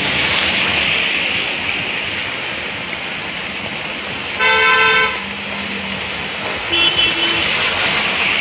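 Steady hiss of heavy rain and car tyres on a wet street. A vehicle horn honks once loudly for about half a second midway, and a shorter, fainter toot follows about two seconds later.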